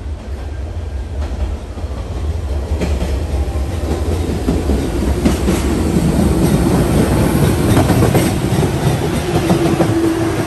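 MBTA Red Line subway train running on the rails and growing louder, its wheels clacking over rail joints. A steady whine comes in near the end.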